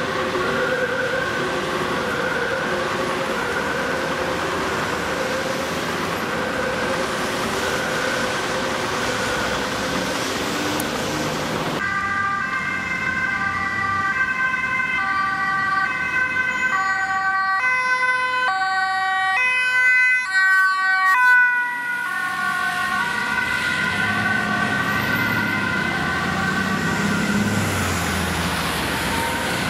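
Dutch ambulance two-tone sirens sounding in traffic, alternating steadily between a high and a low note. Partway through, another ambulance's siren comes in, its notes switching faster and louder for a few seconds.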